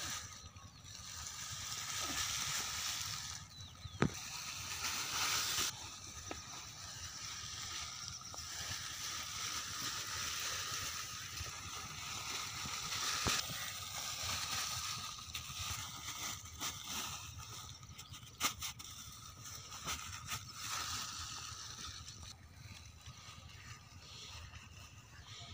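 A roll of 5-inch flat plastic irrigation pipe rolled along sandy ground on a stick axle, the plastic rustling and scraping on the sand as it unrolls. A few sharp clicks come through, about four, thirteen and eighteen seconds in.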